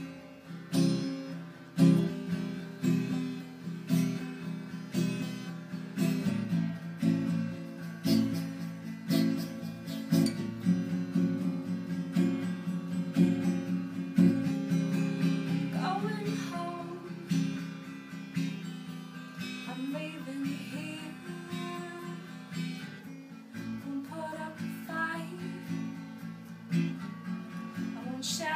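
Acoustic guitar strumming chords in a steady rhythm, the instrumental opening of a song.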